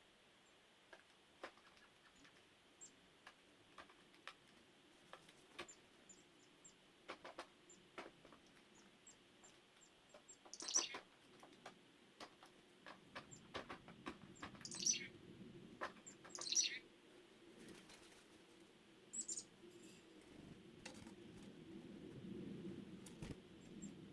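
Birds calling: scattered faint, high, short chirps, then three louder calls that sweep downward about halfway through, among many small ticks and taps. A low rumble comes in during the second half.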